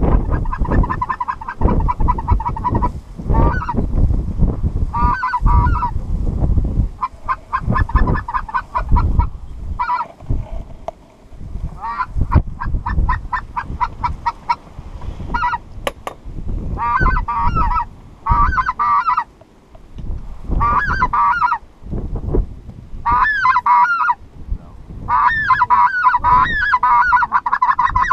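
Geese honking in rapid repeated series of calls, coming in groups of a second or a few seconds each. Under them, wind rumbles on the microphone.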